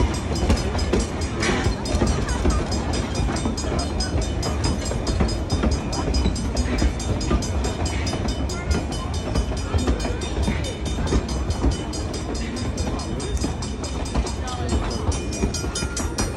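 Narrow-gauge steam-hauled passenger train rolling past: a steady low rumble with rapid, even clicking from the wheels and rail joints.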